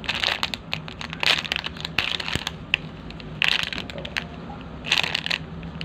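A hand squeezing and handling a foam squishy toy, making about five short, crinkly rustling squeezes.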